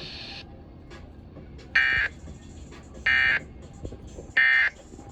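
Emergency Alert System End of Message (EOM) data bursts: three short buzzy two-tone modem bursts, each about a third of a second long, a little over a second apart, marking the end of the alert.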